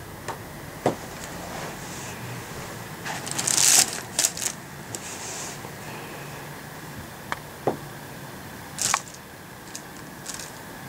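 Nylon pop-up cat tunnel rustling and crinkling as a kitten scrambles in and around it, with scattered light taps; the loudest rustle comes a little before four seconds in, another shortly before the end.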